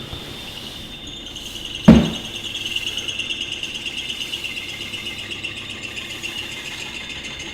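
Bait-making machinery running in the workshop with a steady high whine, and a single loud thump about two seconds in.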